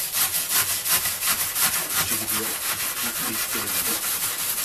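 Long kitchen knife sawing back and forth through a thick bundle of fresh lemongrass stalks on a plastic cutting board: a quick, even scraping at about five strokes a second.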